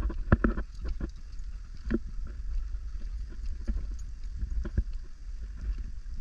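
Footsteps crunching irregularly on a rocky dirt trail, with a steady low rumble of wind on the microphone.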